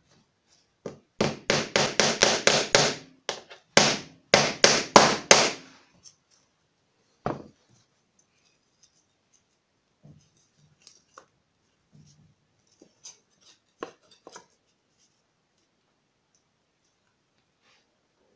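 Hammer driving small brass-headed nails through pre-drilled holes in thin wooden strips into a plywood board. There are two quick runs of sharp strikes, about five a second, then a single knock. Scattered faint taps follow as the next strip is laid in place.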